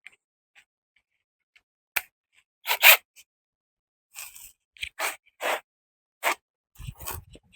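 Scattered short clicks, scrapes and clinks of hand tools and metal suspension parts being handled, with a low rumble near the end.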